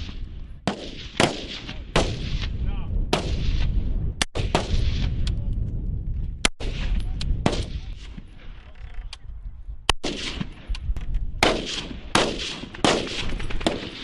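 Rifle shots fired singly at irregular intervals by several shooters, each crack followed by a short echo, over a steady low rumble.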